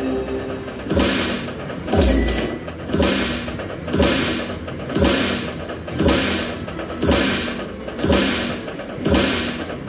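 Dragon Train poker machine's win sound effect: a heavy thump-like hit about once a second, nine in a row, each fading away before the next, as the winnings count up on screen.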